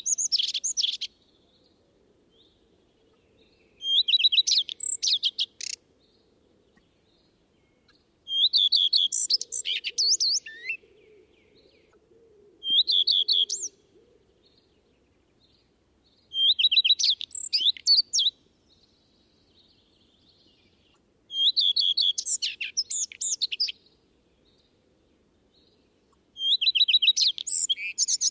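Common redstart singing: short song phrases come about every four to five seconds, each opening with a few repeated clear notes and running on into a quick, varied twitter.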